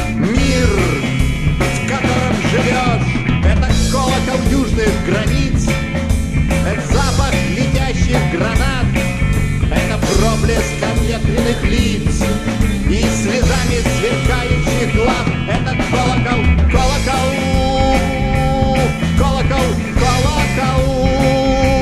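Rock band playing: lead electric guitar lines over rhythm guitar, bass guitar and drums, with a steady driving beat.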